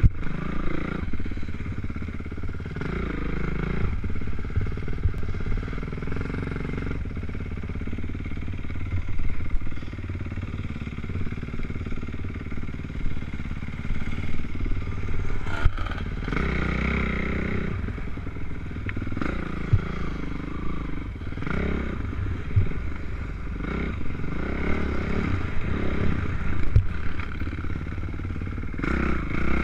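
Dirt bike engine revving up and falling back again and again while riding a motocross track, heard from a helmet-mounted camera, over a steady low wind rumble on the microphone, with scattered sharp knocks as the bike goes over bumps.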